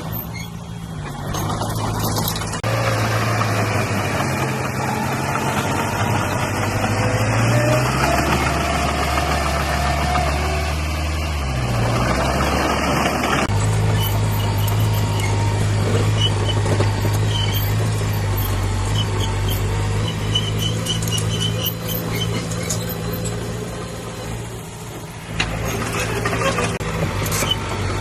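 Heavy diesel engine of earthmoving machinery running under load, its pitch sagging and then climbing back as the load changes. In the second half, high squeaks and metallic clinks sit over the engine. The sound changes abruptly at a few points.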